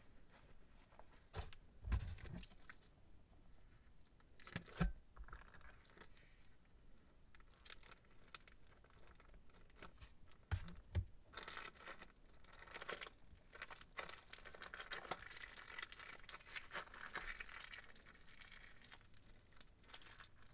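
Plastic piping bag crinkling as it is cut open with scissors and squeezed out into a glass bowl of slime mixture. A few soft knocks come in the first half, then several seconds of dense crinkling.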